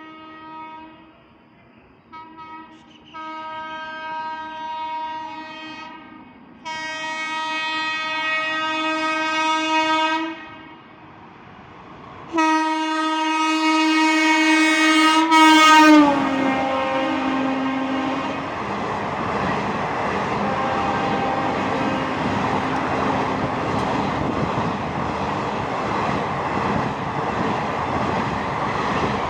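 WAP7 electric locomotive's horn sounding in a string of long blasts as the train approaches at about 120 km/h, the last blast dropping in pitch as the locomotive passes about halfway through. After that, the steady rush and wheel clatter of the coaches going by at high speed.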